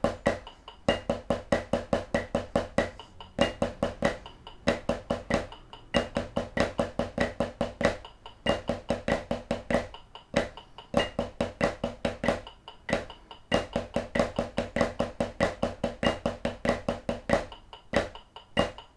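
Snare drum playing the Swiss Army triplet rudiment: a steady stream of sticked triplets with a flam on the first note of each, at a moderate tempo, in phrases separated by short breaks.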